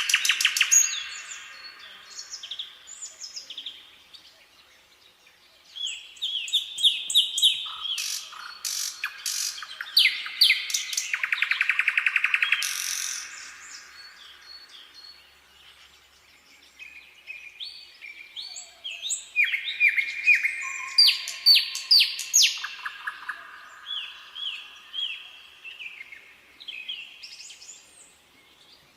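Nightingale singing: varied phrases of repeated whistled notes and fast rattling trills, broken by a couple of brief pauses.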